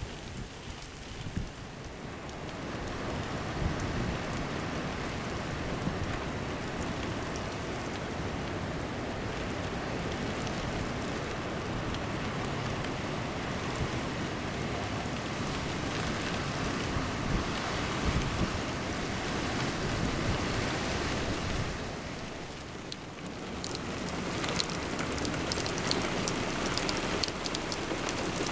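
Steady rain falling on wet ground and standing water. It eases briefly about two-thirds of the way through, then comes back with more high hiss.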